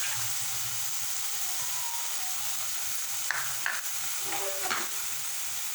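Paneer cubes frying in hot oil in a pan, a steady sizzle, with a few brief scrapes of a spoon turning them partway through.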